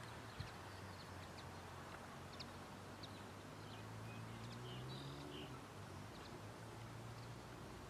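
Faint outdoor ambience: a steady low hum with scattered short, faint bird chirps.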